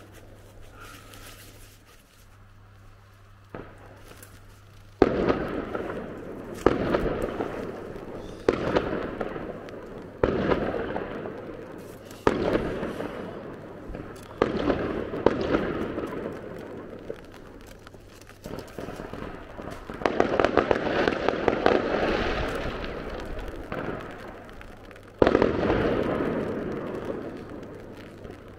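Aerial firework shells bursting one after another, about nine sharp bangs a second or two apart starting some five seconds in, each trailing off in a rolling echo, with a stretch of crackling near the middle.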